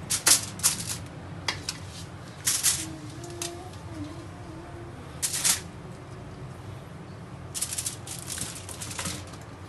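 Crumpled aluminium foil crinkling and rustling in short, irregular bursts as fried mutton chops are set down on it and pushed into place by hand, with a denser run of crinkles near the end.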